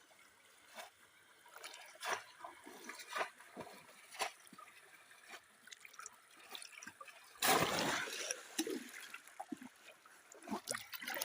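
Shallow water splashing in short, scattered bursts, with one louder splash about seven and a half seconds in lasting about a second, as a fish is worked in a bamboo polo trap.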